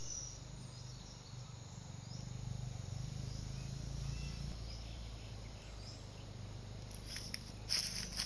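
Forest ambience with faint insect and bird chirps over a low steady rumble, then a few crackling rustles of dry leaf litter about seven seconds in.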